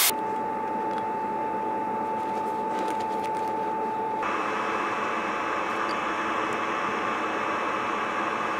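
A machine running steadily: an even hiss with a steady whine, the whine jumping higher about four seconds in.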